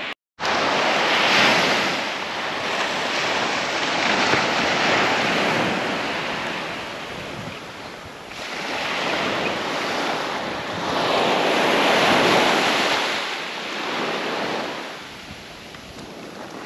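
Surf breaking on the beach, the noise swelling and falling away with each wave every few seconds, with wind buffeting the microphone.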